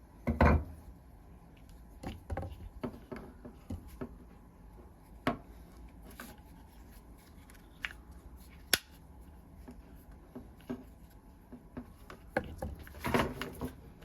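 Scattered clicks, knocks and scrapes of a disassembled quick-grip bar clamp being handled and worked, its plastic handle and metal slide binding on a rusty bar. There is a heavier knock about half a second in, a sharp click near the middle, and a short run of knocks near the end.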